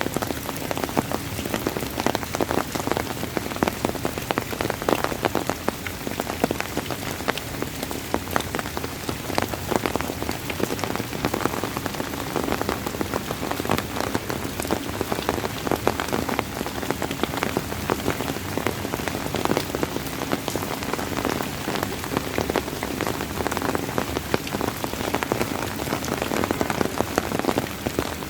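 Steady rain falling, with a dense patter of many individual drops striking a surface.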